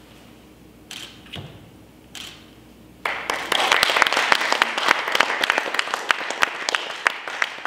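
A small crowd of wedding guests applauding: a few faint short sounds, then the clapping starts suddenly about three seconds in and keeps up strongly.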